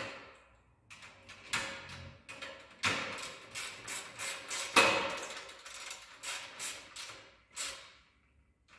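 Steel spanner tightening the pedal bracket bolts of a sewing machine stand: a run of sharp metallic clicks, about three a second, as the spanner is worked back and forth, with one louder knock near the middle.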